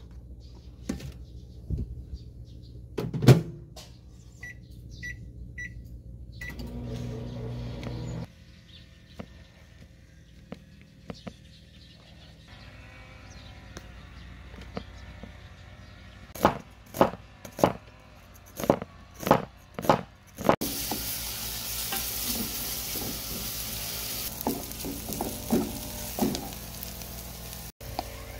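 Microwave oven running, then four short beeps as it finishes. In the middle, a fork clicks against a plastic tub as cooked sweet potato is mashed, and in the last third sliced onion sizzles in a hot aluminium pot.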